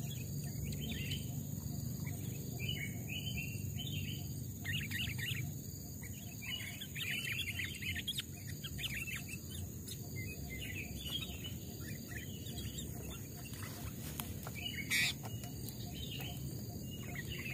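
Sooty-headed bulbul calling in short, bright chirping phrases, repeated again and again, over a steady low background rumble. A brief loud noise breaks in about fifteen seconds in.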